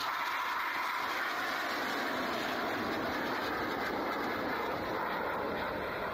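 Steady jet noise from Red Arrows BAE Hawk jets flying past in display, slowly deepening in pitch as they pass.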